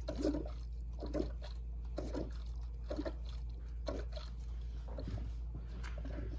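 Engine coolant gurgling and bubbling up through a filler funnel in short pulses about once a second, as the upper radiator hose is squeezed by hand to push trapped air out of a Duramax L5P's cooling system (burping the system).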